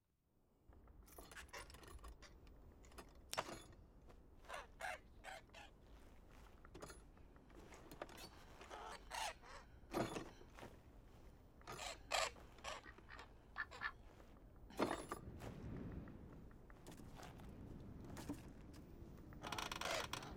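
Quiet sound effects: a steady low rumble of background with scattered short creaks, scrapes and footsteps, and a few brief bird calls.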